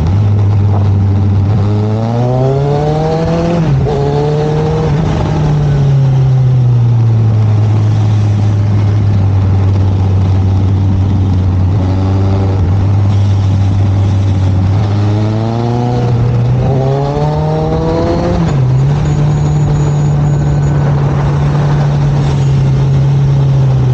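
Suzuki motorcycle engine under way, heard from on the bike. Twice its pitch climbs as it pulls up through the revs and then drops suddenly at a gear change. In between it runs at a steady note.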